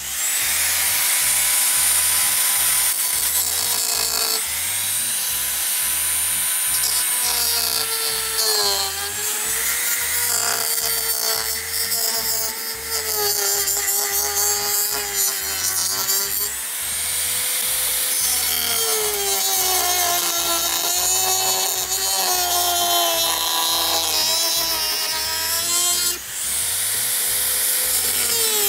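Mini rotary drill with a small circular blade running and cutting through a dried-out plastic speaker enclosure, a rasping hiss over the motor's whine. The motor's pitch sags several times as the blade bites in under load, then recovers.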